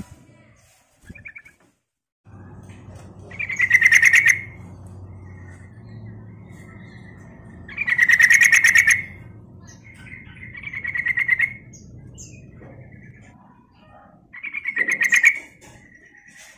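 Yellow-vented bulbul singing: four loud bursts of rapid, bubbling chatter, each about a second long and a few seconds apart, with softer short notes between them.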